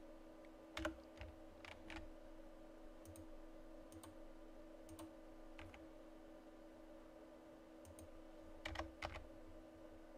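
Scattered clicks of a computer keyboard and mouse over a faint steady hum. The clicks are sparse at first and come in a quick cluster near the end.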